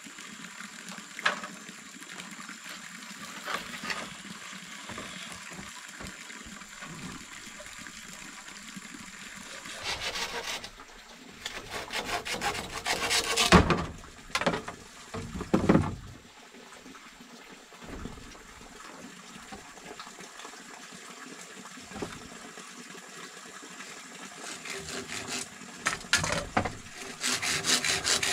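Water trickling steadily, then short spells of hand sawing on wood around the middle, and steady back-and-forth sawing starting near the end.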